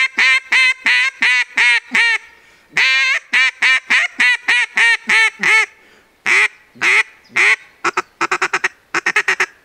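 Acrylic Mallard Hammer 2 duck call blown in a mallard hail call: loud quacks in runs of about eight or nine. Then come three longer quacks, and a faster run of short quacks near the end.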